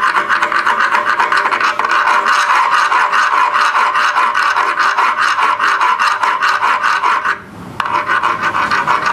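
Round file rasping back and forth in quick, even strokes over a freshly drilled set-screw landing on a metal jackshaft, deburring it smooth, with a short pause about seven and a half seconds in.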